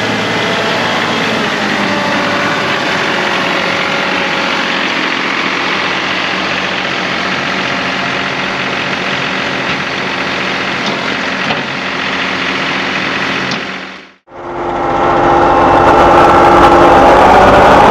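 John Deere 2038R compact tractor's three-cylinder diesel engine running steadily. The sound cuts out briefly about 14 seconds in and resumes louder.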